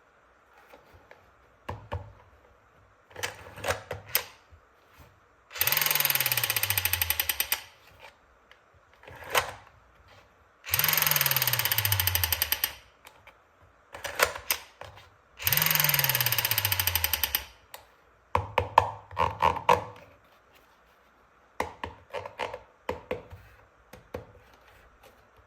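Toy automatic rifle's firing sound effect: three bursts of rapid rattling, each about two seconds long and cut off sharply, each with a low tone falling in pitch. Plastic clicks and knocks from handling the toy come between the bursts.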